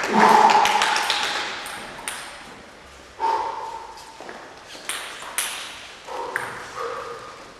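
Celluloid table tennis ball clicking off the table and paddles: a handful of separate sharp ticks spread across a few seconds. A brief voice is the loudest sound, at the very start.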